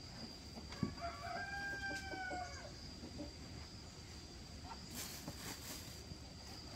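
A rooster crows once, a single call of about two seconds, starting just after a sharp knock a little under a second in. A steady high whine runs underneath, with a few light clicks near the end.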